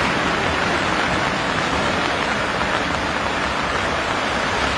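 Fast, swollen floodwater rushing and churning in a river that has burst its banks, a steady, even rush of water.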